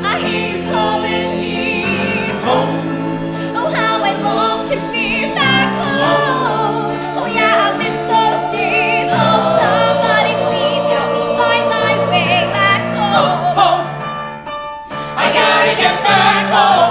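Music: a song with singing, held notes wavering in vibrato over a steady accompaniment.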